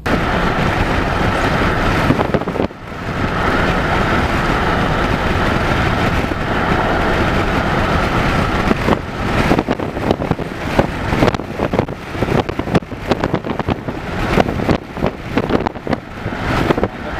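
Wind and road noise from a moving vehicle, with wind buffeting the microphone. The noise is steady at first and turns gusty and choppy about halfway through.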